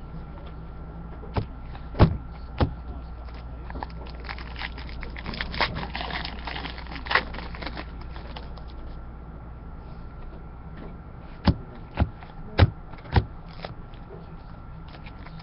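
Trading cards being handled at a table: a few sharp taps and clicks, a stretch of rustling and small knocks in the middle, then four more quick taps, over a faint steady hum.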